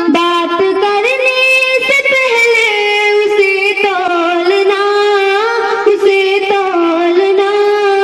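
Background music: a slow melody of long held notes that slide smoothly from one pitch to the next, sung without clear words.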